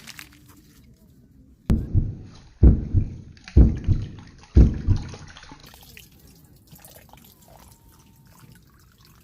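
Four dull, low thumps about a second apart, each a quick double knock.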